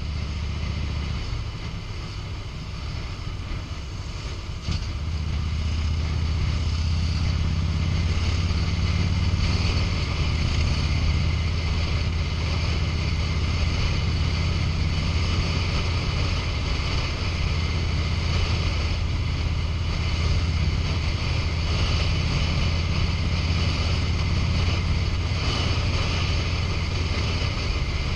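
2005 Harley-Davidson Road King's V-twin engine running at road speed, with wind rushing over the microphone. The engine note grows louder about five seconds in and then stays steady.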